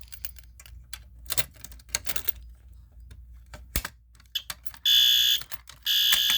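Clicks and rattles of a key being worked in a Simplex fire alarm pull station's lock. Near the end a fire alarm horn sounds two loud, steady blasts, each about half a second long, half a second apart: the alarm signal set off by the activated pull station.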